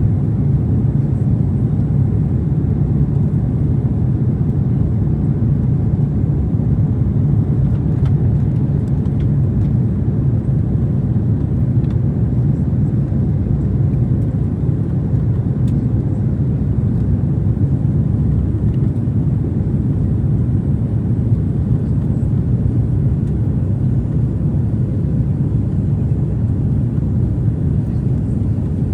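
Airliner cabin noise heard from a window seat: the steady, low rush of jet engines and airflow, unchanging throughout.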